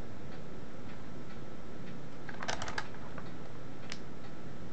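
Plastic clicking from the Hickok LX303 multimeter's range slide switch being pushed across its positions: a quick run of clicks about two and a half seconds in, then a single click near four seconds.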